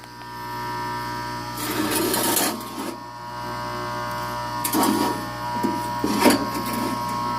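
An exhaust fan's failing electric motor runs under power with a steady electrical hum. Three short bursts of rough, rattling noise come over the hum, at about two seconds in, near five seconds and near six seconds.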